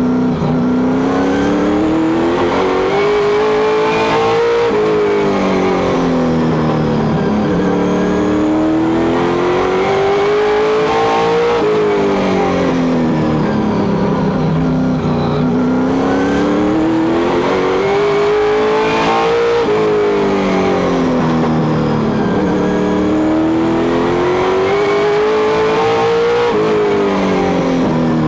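Stock car engine heard from inside the cockpit, lapping a short oval. Its pitch climbs for a few seconds down each straight and then falls as the driver eases off into the turn, repeating about every seven seconds, four laps in all.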